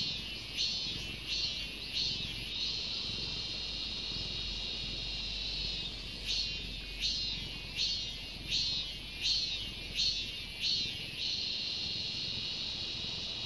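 Cicadas calling: a high, pulsing song of about one and a half calls a second that settles into a steady drone, then starts pulsing again about six seconds in and goes back to a steady drone near the end.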